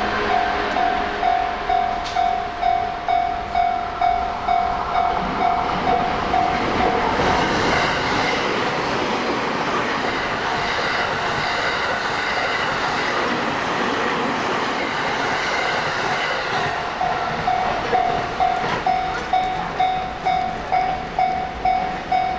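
Japanese level-crossing alarm bell ringing in a steady repeating ding, about one and a half strikes a second, while a train runs through the crossing with its wheels clacking on the rails. The train's rush covers the bell through the middle, and the bell is plain again for the last few seconds.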